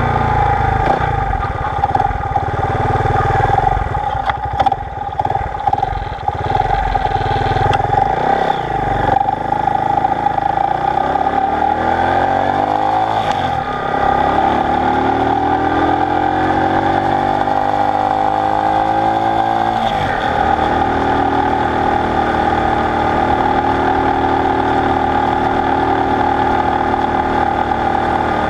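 Honda SL90's single-cylinder four-stroke engine running under way, with wind buffeting the microphone during the first several seconds. The engine pitch climbs as the bike accelerates, drops suddenly at an upshift about 13 seconds in, climbs again and drops at another shift about 20 seconds in, then holds steady at cruising speed.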